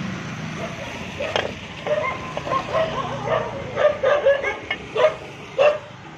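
A dog barking, a rapid string of short barks and yips starting about a second in.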